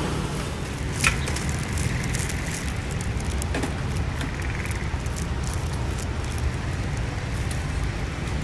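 Outdoor street ambience: a steady low rumble of traffic and air, with scattered sharp clicks and ticks, the loudest about a second in.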